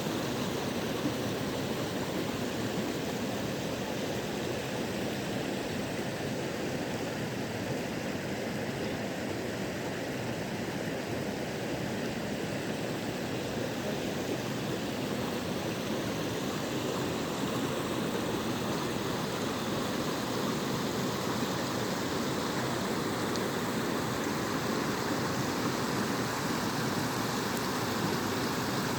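Natural waterfall: water falling and splashing in a steady, even rush.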